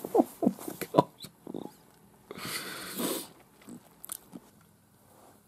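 A man's short, wordless vocal noises in the first second and a half, then a long breathy exhale, like a sigh. Two small clicks follow, then only low room tone.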